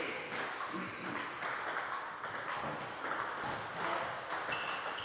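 Table tennis rally: the celluloid ball repeatedly clicked back and forth by bats and bouncing on the table, with more ball pings from neighbouring tables in the sports hall.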